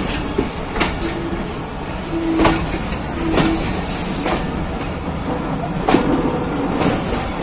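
A passenger train coach rolling slowly through a station yard, heard from its open doorway: a steady rumble of wheels on rail with scattered sharp clacks as the wheels cross rail joints and points.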